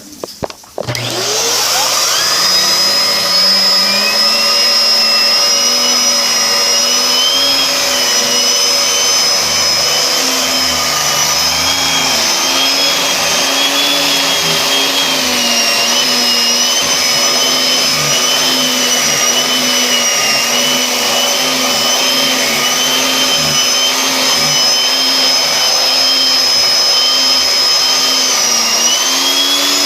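Vacuum cleaner switched on about a second in, its motor whine climbing as it spins up, then running steadily at full speed with its pitch wavering slightly.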